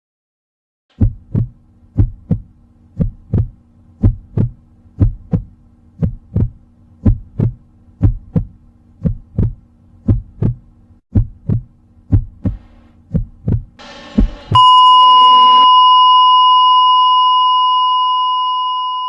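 Heartbeat sound effect: a low double thump about once a second, steady, that stops suddenly about fourteen seconds in. A short rush of noise follows, then a loud, steady electronic beep tone like a heart monitor's flatline, slowly fading.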